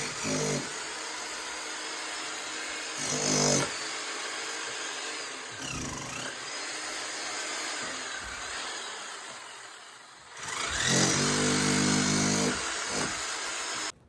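Power tool cutting into material, its motor whine rising in short spells a little after three seconds and again, loudest, from about ten and a half seconds, then stopping abruptly near the end.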